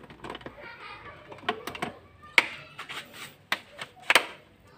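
Air filter housing clips on a Daihatsu Xenia's engine being snapped shut by hand: a handful of sharp plastic and metal clicks, two of them close together near the end.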